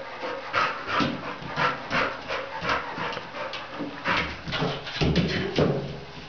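A Staffordshire terrier panting hard and fast while chasing a balloon, about two to three breaths a second, briefly louder and deeper about five seconds in.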